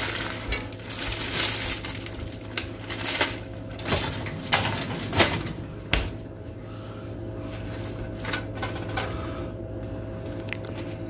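Plastic bag crinkling, then a few sharp clicks and knocks of kitchen handling and a wooden spoon in a skillet of ground meat and corn, over a steady low hum.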